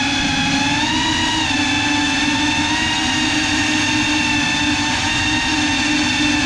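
GEPRC CineLog35 cinewhoop drone's four brushless motors and ducted propellers whining steadily in flight, the pitch wavering a little with throttle, heard from the GoPro carried on the drone.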